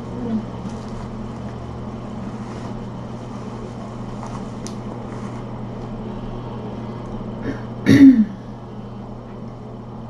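Steady low hum of room noise, with one short cough from a person about eight seconds in.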